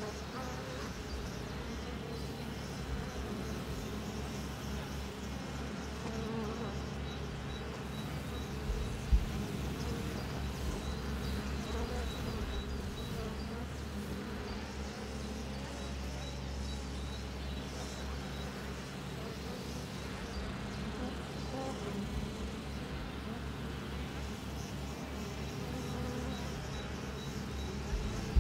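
Mason bees buzzing as they fly around their nesting tubes, a steady hum that runs on without a break, with one short sharp tap about nine seconds in.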